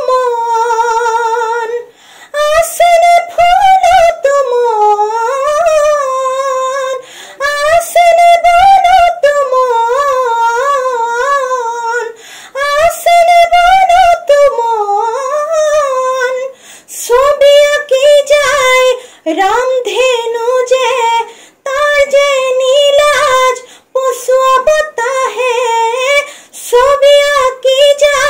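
A young woman singing a modern song unaccompanied, with strong vibrato on held notes, in phrases separated by short breaths.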